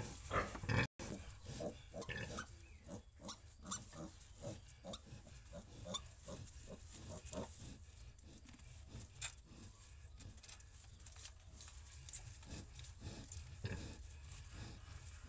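Sow grunting in short, low grunts in a steady rhythm of about three a second, the kind of grunting a sow makes while caring for and nursing her piglets.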